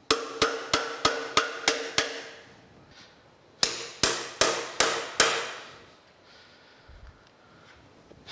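A hammer tapping machinist wedges driven into the joint of a steam locomotive stoker engine's stuck cylinder head, working the head off its dowel pins. Two quick runs of ringing metal blows, about seven and then about five, roughly three a second.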